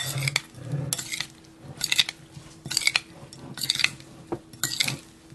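A metal tablespoon clinking and scraping against a glass bowl in repeated strokes, roughly once a second, as it tosses cherry tomatoes and mozzarella balls in olive oil.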